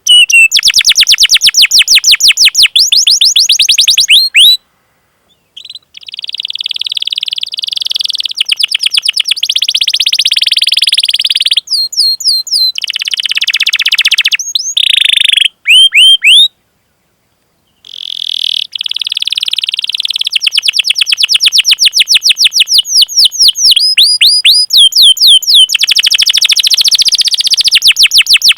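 Canary singing: long runs of rapid, evenly repeated chirps running together into rolling trills, with two brief silent pauses, one about five seconds in and one about seventeen seconds in.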